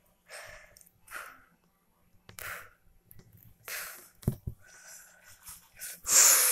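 A person's short breathy puffs and hisses close to the microphone, several over a few seconds, with a couple of soft knocks about four seconds in and a loud rushing burst near the end.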